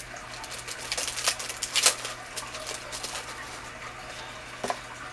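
Packaging crinkling and rustling with scattered sharp clicks as a small enamel phone grip (pop socket) is taken out of its package, the loudest crackles about two seconds in.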